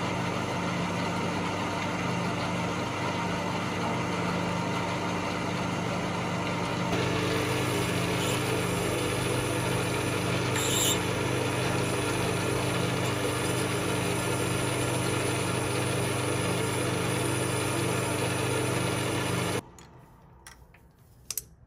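Small metal lathe running steadily, its motor humming while the cutting tool faces a large metal disc. The sound stops suddenly near the end, leaving a few faint clicks.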